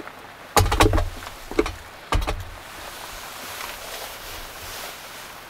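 Ceramic donabe clay pot being handled and set down on a small folding metal stove. It gives a few sharp clunks and clatters over the first two and a half seconds, then a steady faint hiss.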